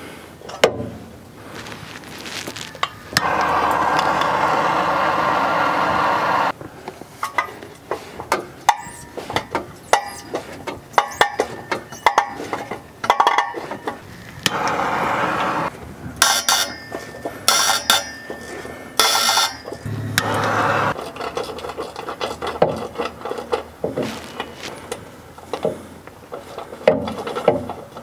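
Ratchet and socket clicking and clanking on rusted exhaust flange bolts as they are worked loose, with a stretch of steady rushing noise about three seconds in and shorter ones later.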